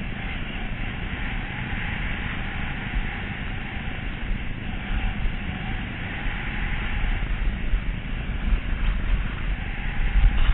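Wind rushing over a helmet-mounted GoPro Hero camera, a low rumbling buffet, mixed with the steady hiss of Fischer Watea 78 skis sliding over packed snow on a downhill run. It grows louder near the end as speed builds.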